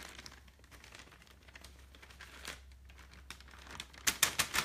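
A sheet of paper rustling and crinkling softly as it is folded to tip mixed mineral powder into a beaker, then a quick run of loud crackles about four seconds in.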